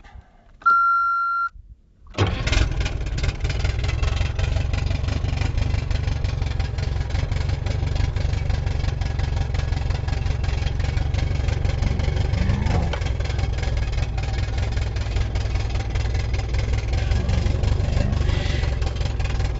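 A short electronic beep as the key is switched on, then a Mercury 40 hp outboard motor starts on the key about two seconds in and settles into a steady idle.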